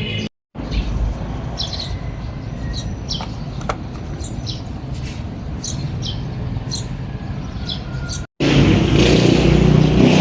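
Outdoor ambience: a steady low traffic rumble with birds chirping over it. After a brief break near the end it gives way to louder, closer vehicle engine noise.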